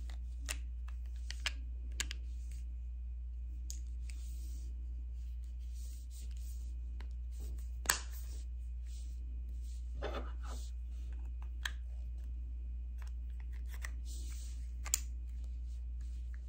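Light plastic clicks and rattles as a Honda HR-V key fob's case halves are handled and pressed together, over a steady low hum. The loudest sharp click comes about eight seconds in as the case snaps shut, and another sharp click comes near the end as the metal key blade goes back in.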